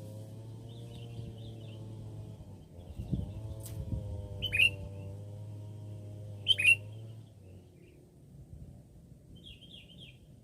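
Sooty-headed bulbuls calling: short twittering phrases, and two loud, sharp, falling chirps about four and a half and six and a half seconds in. A steady low hum runs underneath.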